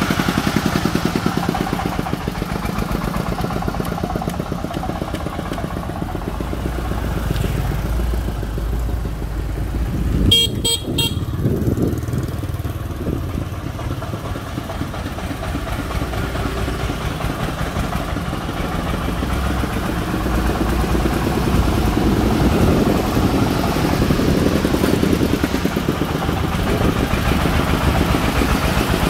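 Công nông farm truck's diesel engine chugging steadily as it drives loaded with bricks. A horn beeps several times in quick succession about ten seconds in.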